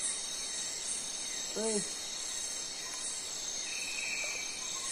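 Night-time chorus of crickets and other insects trilling steadily, with a high buzz pulsing about once a second. A single short rising-and-falling call cuts in about a second and a half in.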